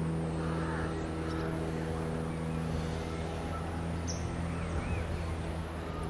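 Outdoor ambience: a steady low hum with faint chirping from small birds now and then, one a little clearer about four seconds in.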